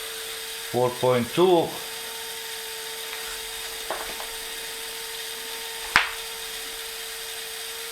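Air compressor feeding the laser's air-assist line, running with a steady even hum. A soft click comes near four seconds and a sharp click about six seconds in.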